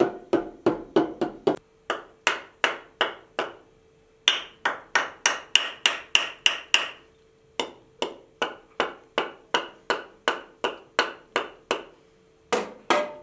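Repeated sharp knocks of a boiled cow-leg bone struck against an aluminium cooking pot, about three or four a second in runs with short pauses, the pot ringing faintly under the knocks.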